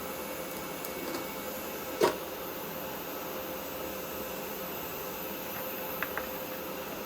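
TIG welding arc on titanium exhaust tubing: a steady hiss with a faint steady hum. A sharp click about two seconds in, two small ticks near the end, and another click right at the end.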